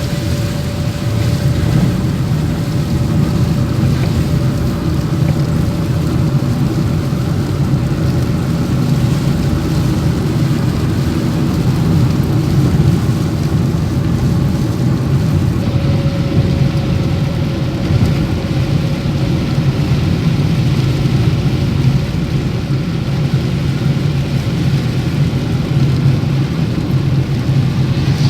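Steady vehicle noise, engine and tyres on the road, running without a break, with a faint steady whine at the start and again around the middle.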